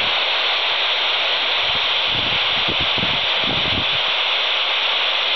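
Steady FM receiver static hiss from a Quansheng TG-UV2 handheld radio's speaker. It is tuned to 145.800 MHz with no station coming through, only noise.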